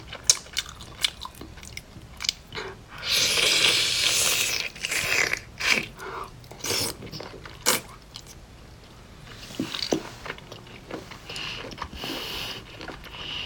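A person eating seafood close to the microphone: biting and chewing with crunching and crackling, and a louder noisy stretch of about a second and a half about three seconds in.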